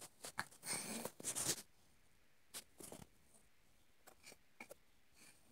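Faint handling noise: clicks and scraping rustles in the first second and a half, then a few scattered soft taps and rustles.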